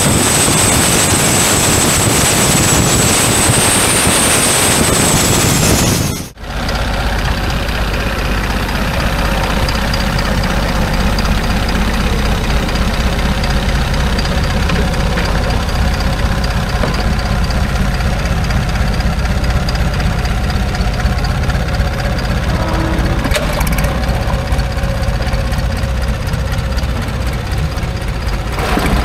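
Turbocharged Isuzu 4JJ diesel of a longtail boat running at speed, a loud rush of engine and water with a high thin whine over it. About six seconds in it cuts abruptly to the same engine idling steadily.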